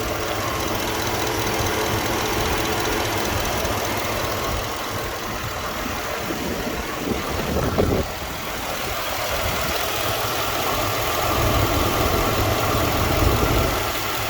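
2008 Chevrolet Avalanche's V8 engine idling steadily, heard close to the engine bay, with a brief bump about eight seconds in.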